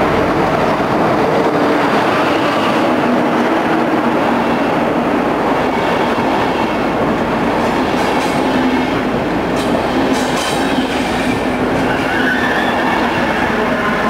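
A Swiss electric locomotive-hauled passenger train passes close by at speed, making a steady, loud rumble as the locomotive and then the coaches go past. Wheels click over the rail joints after about eight seconds.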